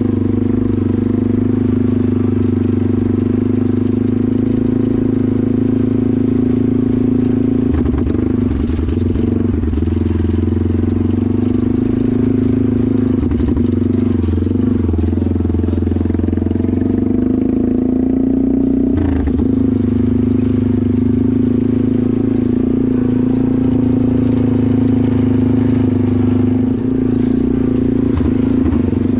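Off-road vehicle engine running steadily at low speed, heard close up as if from on board, with a brief knock about two-thirds of the way through.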